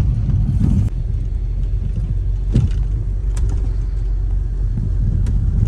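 An off-road vehicle driving along a road, heard from inside the cabin: a steady low rumble of engine and tyres, with a few short knocks and rattles.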